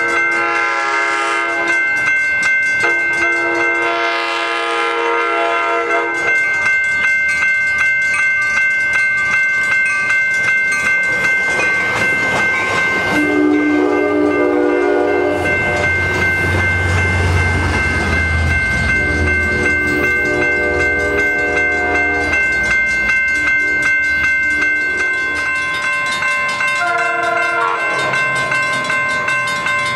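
Coaster commuter train passing a grade crossing: the diesel locomotive's horn sounds repeated blasts, long and short, while the crossing signal rings steadily. The locomotive's engine rumbles low as it goes by about halfway through.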